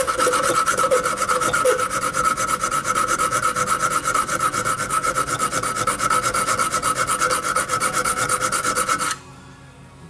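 Hand file rasping on the steel pan of a foothold trap in fast, even strokes, with the metal ringing a steady note. This is the notch being filed square to night-latch the trap. It stops suddenly about nine seconds in.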